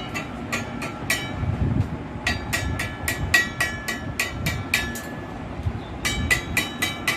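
Hammer blows on a steel drive shaft tube, about three a second in runs broken by short pauses, each strike leaving the tube ringing with a clear metallic tone.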